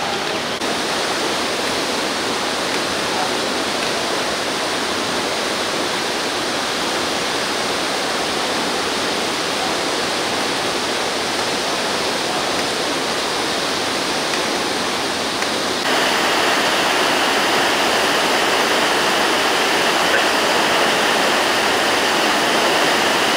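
Steady rush of flowing water, growing louder about sixteen seconds in.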